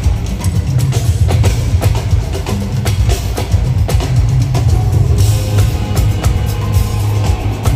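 Loud live Afrobeats concert music through an arena sound system: a heavy bass line under a steady drum beat.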